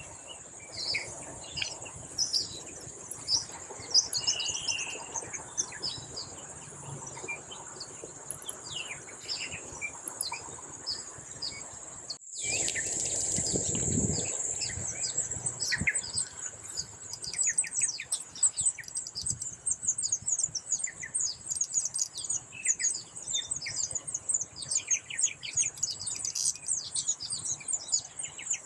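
Baya weavers chirping and chattering around their nests over a steady high insect buzz; in the last third the chirps come in fast, dense runs. About halfway through, a brief rush of noise covers them for a couple of seconds.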